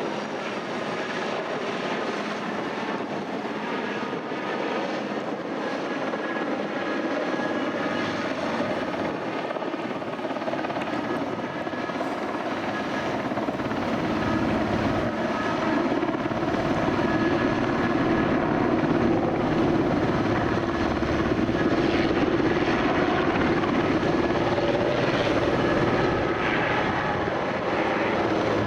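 Airbus AS332L Super Puma heavy helicopter running, a steady rotor and twin-turboshaft drone with a faint turbine whine, growing louder about halfway through.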